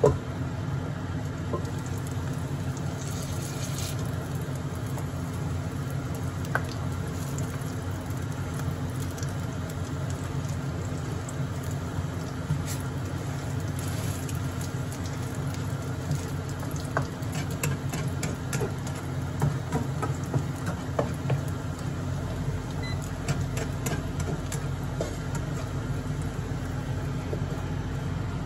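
Hamburger steak patties frying in a nonstick pan: a steady sizzle with scattered small pops and spatula clicks over a constant low hum. A metal lid clanks onto the pan right at the start.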